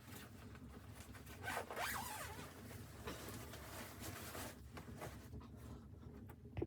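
A zipper pulled in several short strokes, the longest and loudest about two seconds in.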